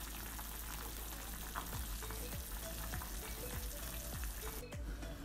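Sinigang broth with radish and tomato simmering in a stainless steel saucepan on a gas stove: a steady hiss with soft bubbling pops, roughly two a second, breaking off briefly near the end.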